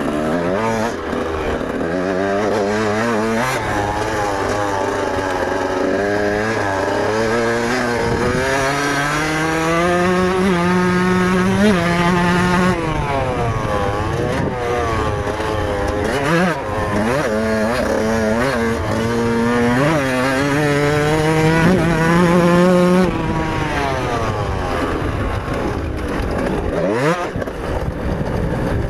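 1999 Yamaha YZ125's single-cylinder two-stroke engine being ridden hard, its pitch climbing again and again as it revs up through the gears and dropping back on each shift or roll-off. It is heard close up from a camera mounted on the bike or rider.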